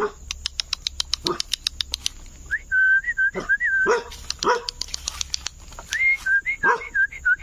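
Dogs barking in short, scattered barks, with a high wavering call heard twice, about three seconds in and again near the end.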